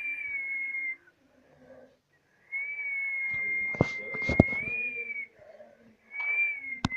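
A person whistling long, steady single notes to imitate an airplane in flight, three held notes with short gaps between them. A few sharp clicks come in the middle and near the end.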